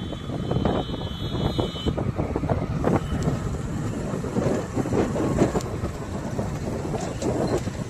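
A road vehicle rumbles along with frequent rattles and clatter, and wind buffets the microphone. A thin high whine sounds over it for the first two seconds.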